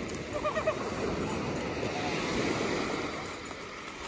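Small waves washing against a stony shore, the wash swelling a little past the middle.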